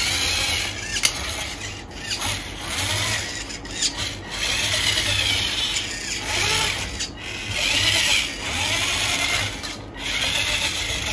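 Small electric drive motor and gearbox of a homemade RC model tractor whirring as the tractor drives and turns. It runs in several spells broken by brief pauses, and its pitch rises and falls a little.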